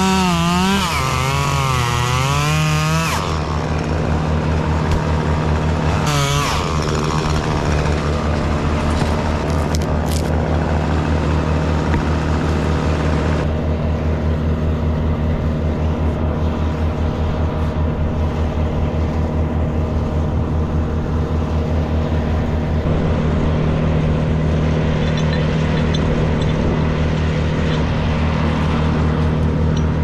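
Chainsaw cutting through an oak trunk at full throttle, its pitch wavering, until about three seconds in. It revs again briefly around six seconds, and a steady engine hum carries on underneath.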